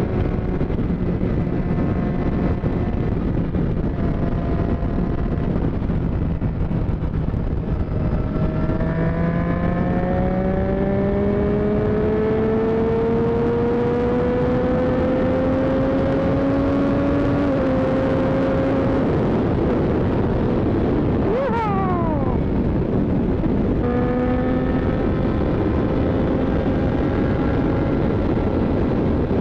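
Motorcycle engine running under way with a heavy rush of wind and road noise. About a third of the way in, its pitch climbs steadily as the bike accelerates, then drops slightly at a gearshift. A little past two-thirds, a quick rev rises and falls sharply before the engine settles back to steady cruising.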